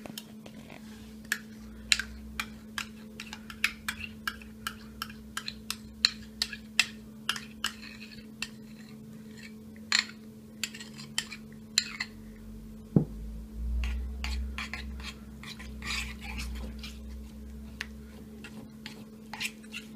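Metal fork clinking and scraping against a ceramic plate in many quick, irregular taps while mayonnaise is stirred into a dressing, over a steady low hum.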